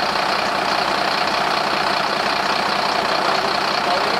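Mercedes-Benz Atego 2425 truck's diesel engine idling steadily.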